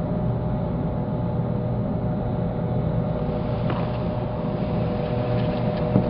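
Steady low mechanical hum with a faint steady tone above it, and a faint click a little before the middle.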